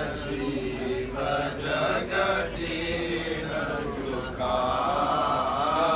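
Voices chanting Hindu funeral mantras in a steady, drawn-out chant, with one voice coming in louder and higher about two-thirds of the way through.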